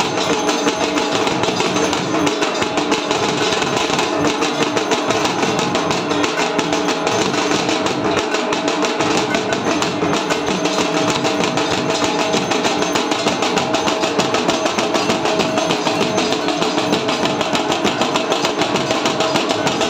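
Loud, steady aarti music: rapid, even percussion with ringing metallic tones held underneath, going on without a break.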